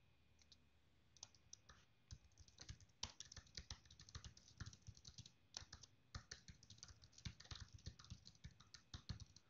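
Typing on a computer keyboard: a fast, irregular run of faint key clicks that starts about a second in.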